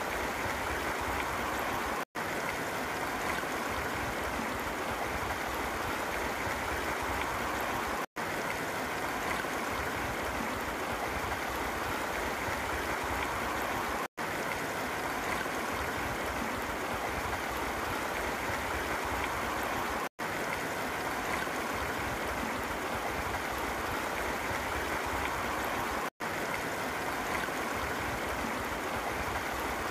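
Shallow creek rushing over and around rocks, a steady wash of water noise from the churning white water of small hydraulic jumps. The sound drops out for an instant about every six seconds.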